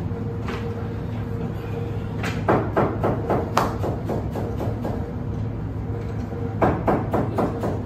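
Two bursts of quick knocking strikes, several a second, one a little after two seconds in and one near the end, over a steady low hum.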